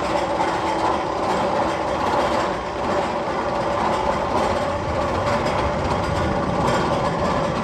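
Magnum XL 200 roller coaster train running on its steel track: a steady rumble with rattling wheel clatter that holds even throughout.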